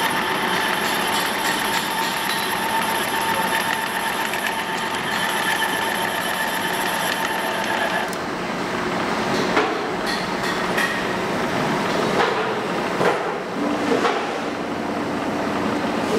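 Machinery running steadily with a whine, cutting off about halfway through. Then come several sharp metal knocks and clicks as a cylinder boring machine is adjusted and clamped by hand, and a lower steady hum starts near the end.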